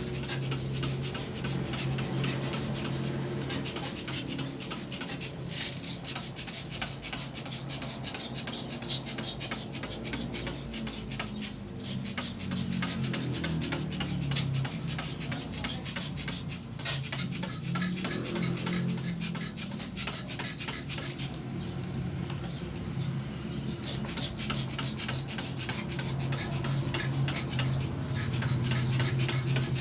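A stiff brush scrubbing back and forth over the parts of a dusty window air conditioner in rapid, continuous rasping strokes, over a steady low hum.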